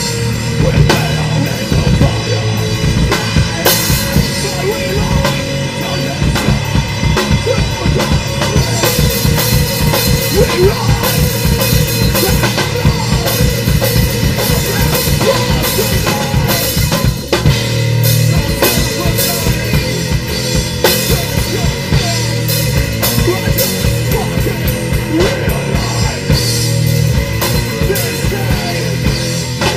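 Rock band playing live: a heavy drum kit with bass drum, snare and cymbals driving under sustained low bass guitar notes.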